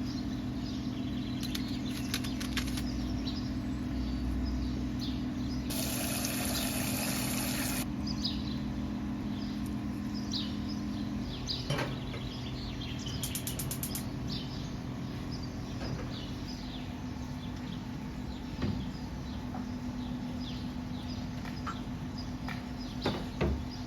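Small birds chirping repeatedly over a steady low hum, with a burst of hiss lasting about two seconds, roughly six seconds in.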